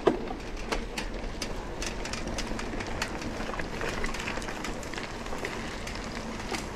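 Mountain bike rolling over a rough dirt road: tyres crunching on loose grit, with irregular rattles and clicks from the bike.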